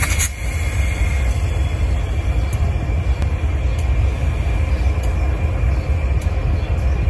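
Canadian National diesel freight locomotives passing slowly, their engines giving a steady low rumble.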